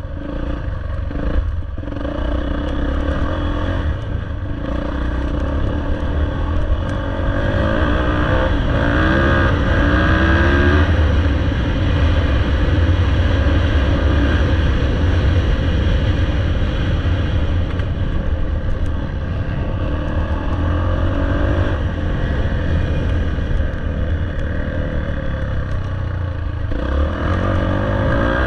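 Off-road dirt bike engine running under throttle, with the revs climbing about eight seconds in and again near the end.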